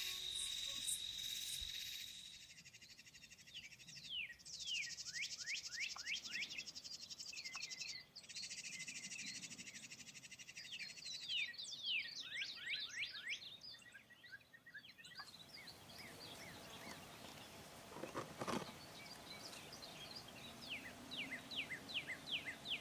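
Faint evening outdoor sounds: a bird calls in several runs of quick down-slurred chirps, over a steady high insect trill that fades out about halfway through.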